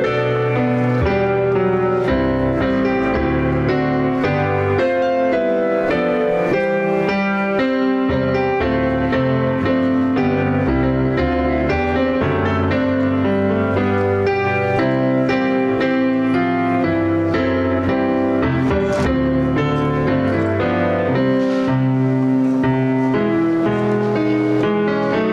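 Closing postlude of a church service played on a keyboard instrument: slow, steady chords over held bass notes.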